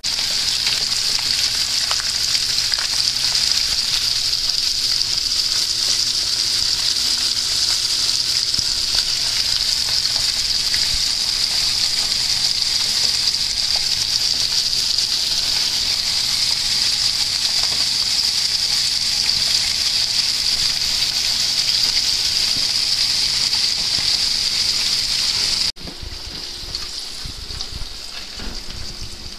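Smelt frying in hot vegetable oil in a skillet: a steady, loud sizzle. Near the end it drops suddenly to a quieter sizzle.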